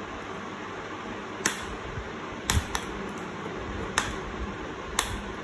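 Five short, sharp clicks of laptop parts and tools being handled during disassembly, over a steady background hiss like a fan.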